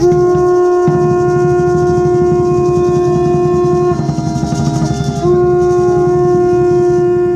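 A horn blowing one long, steady, loud note, weakening to a slightly lower note for about a second midway, then sounding strongly again for a few more seconds.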